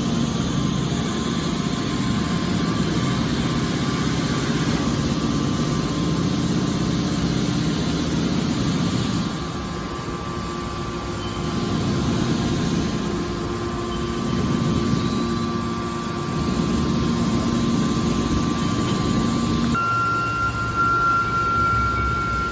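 Horizontal hydraulic metal baler running: a steady machine noise from its hydraulic power unit that dips and comes back twice, with a thin high whine starting near the end.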